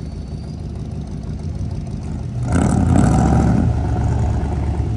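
Car engines rumbling low as cars roll past at low speed. About halfway through, one gets louder for a second or so as it goes by under a little throttle.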